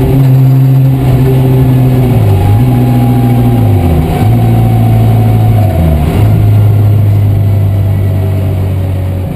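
BMW E36 M3's straight-six engine heard from inside the cabin, running loud at steady revs. Its pitch dips briefly and settles lower three times, about two, four and six seconds in, as gears are changed.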